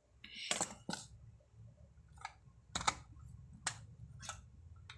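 A handful of short, separate clicks and crinkles, the two loudest about half a second in, as foil snack packs and a small cardboard box are handled on a table.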